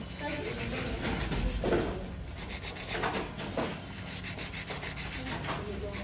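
Hand nail file scraping across long artificial nail extensions in quick back-and-forth strokes, several a second, with a brief pause or two as the file is repositioned, shaping the nail tips.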